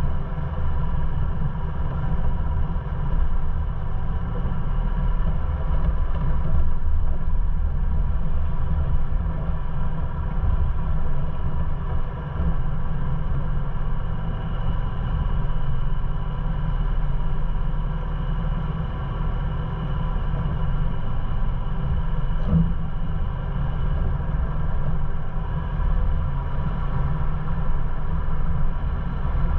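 Ford Bronco driving slowly over a rocky off-road trail, a continuous low rumble of engine and tyres, with one light knock about two-thirds of the way through.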